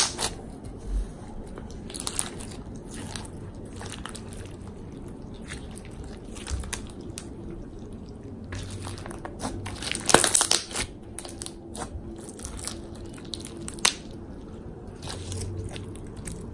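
Clear slime packed with plastic fishbowl beads being squeezed and stretched by hand, crunching and crackling in scattered small clicks. There is a louder run of crackles about ten seconds in.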